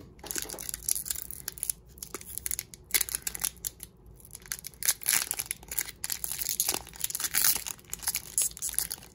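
Foil Pokémon card booster pack wrapper being crinkled and torn open by hand, with irregular crackling throughout; the tough wrapper takes repeated tugs to open.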